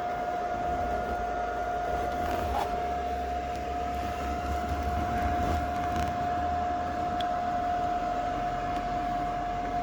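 Small 100-volt welder running continuously as it builds up weld on a dented car frame: a steady buzz with a constant high whine.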